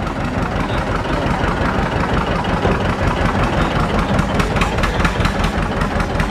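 John Deere two-cylinder tractor engine running at low speed as the tractor creeps along, with an even popping beat that grows clearer about four seconds in.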